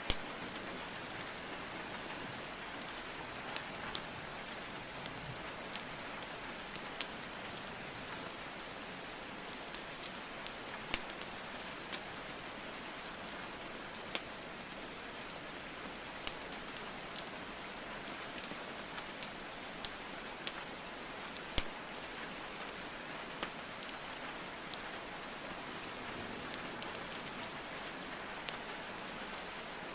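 Steady rain hiss mixed with a wood fire crackling, with sharp irregular pops of burning logs scattered through it.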